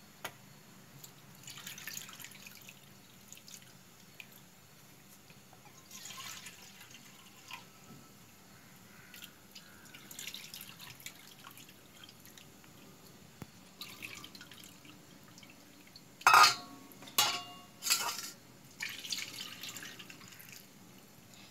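Split pigeon peas (toor dal) being washed by hand in water in a stainless-steel bowl: intermittent splashing and trickling as the grains are swished and the water is poured off. About three quarters through come three or four loud clanks of the steel bowls, each with a short ring.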